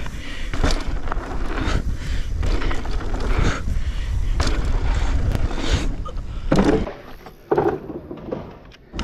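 A mountain bike being ridden fast down a dirt-jump line, with wind rushing over the microphone and the tyres and frame rattling on loose dirt. Sharp knocks and thuds come from the jump take-offs and landings, and it gets quieter near the end as the rider slows.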